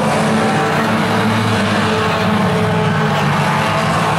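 Engines of several Tuners-class budget compact race cars running together at racing speed around an oval track. The sound is loud and steady throughout.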